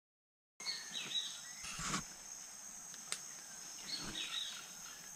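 Half a second of dead silence, then outdoor ambience of a steady, high insect chorus with scattered bird chirps and a single sharp click about three seconds in.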